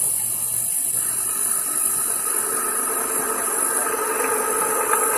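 TU-2A CNC training lathe running with a steady high hiss. About a second in, a steady machine tone comes in and holds.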